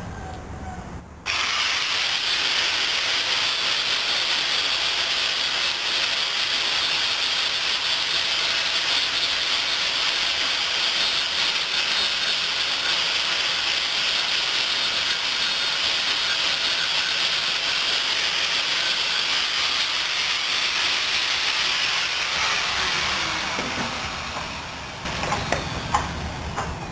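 Stick-welding arc turned down to 17 amps on thin sheet metal, crackling and hissing steadily as metal is built up around a burn-through hole to close it. It starts abruptly about a second in and fades out a couple of seconds before the end.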